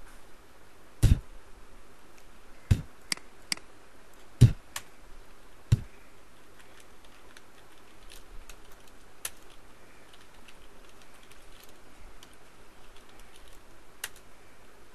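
Computer keyboard being typed on. About seven loud, sharp key clacks come in the first six seconds, then lighter, scattered key taps follow, with one louder tap near the end.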